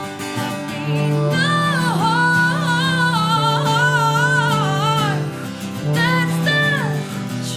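Live acoustic music: a held low note under a sustained, wavering melody line, with guitar. The melody drops out briefly about five seconds in, then comes back.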